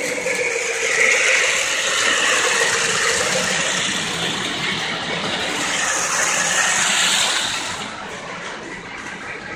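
Electric model trains running on the layout's track: a steady clatter of wheels on rails with a motor hum, getting quieter about eight seconds in.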